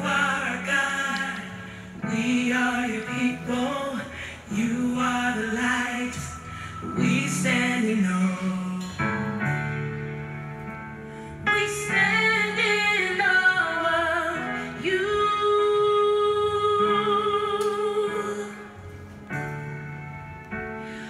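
Music with singing: a song with long wavering held vocal notes over a steady low bass.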